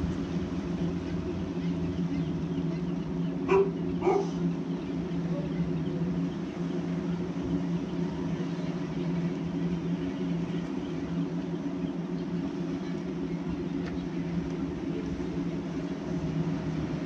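A steady low mechanical hum, with two short, sharp animal calls about half a second apart a few seconds in.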